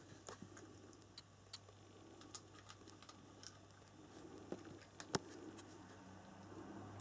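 Faint, irregular small clicks and ticks over a low steady hum, with one sharper click about five seconds in.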